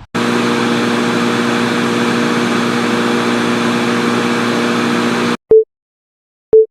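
Edited intro sound effect: about five seconds of loud, steady static-like hiss with a low hum of several steady tones, cutting off suddenly. Then two short identical beeps about a second apart, like a countdown.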